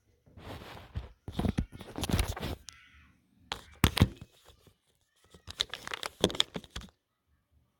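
Handling noises from a laptop's plastic bottom cover and its screws being worked on by hand: four bursts of scraping and rustling with sharp clicks, then quiet near the end.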